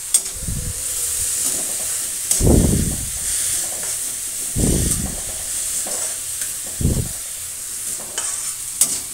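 Vegetables sizzling in hot oil in a metal kadhai while a spatula stirs and scrapes through them. About every two seconds there is a heavier sweep of the spatula, with a few sharp clicks of it against the pan.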